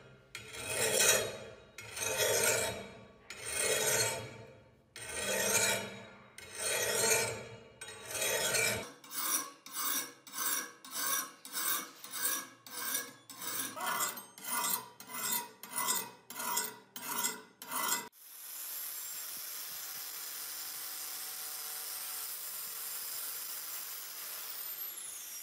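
Hand file rasping across a steel knife blade in long strokes, about one a second, then in quicker strokes about two a second. About eighteen seconds in, this gives way to the steady whir of a power disc sander running on the blade.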